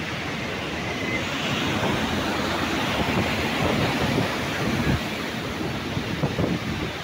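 Water rushing through open dam spillway gates: a steady rushing noise that swells slightly in the middle, with wind buffeting the microphone.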